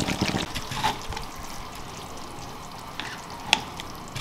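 Thick chicken gravy running off a ladle back into a wok, then a steady soft simmering hiss from the pan. A couple of sharp clinks come near the end.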